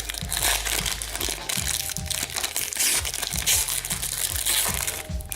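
Plastic foil wrapper of a hockey card pack crinkling and crackling as it is torn open and handled, over background music with a steady low beat.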